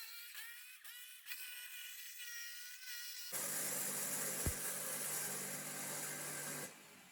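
Power tool motor whining, its pitch rising and falling as the speed changes. About three seconds in it gives way to a louder, rougher buzz with a single knock, which fades out near the end.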